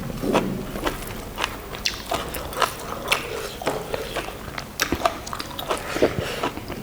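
People chewing and biting buffalo innards close to the microphone: irregular, sharp, wet mouth clicks several times a second.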